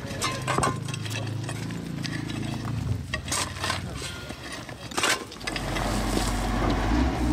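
A vehicle engine running, then several sharp clinks and knocks of hand tools striking rubble and stones. About five and a half seconds in, a heavy wheel loader's engine comes in with a deep, steady rumble as rubble pours from its bucket.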